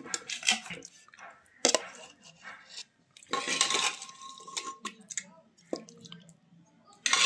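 Metal ladle scraping and knocking against an aluminium pressure cooker as thick curry is scooped out and spooned onto a plate, in a few separate bursts.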